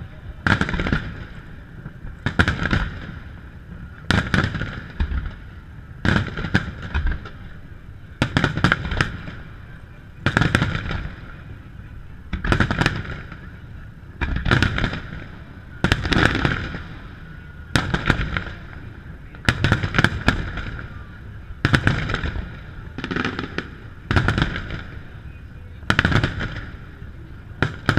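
Aerial firework shells bursting in a steady rhythm: a volley of bangs followed by crackle about every two seconds.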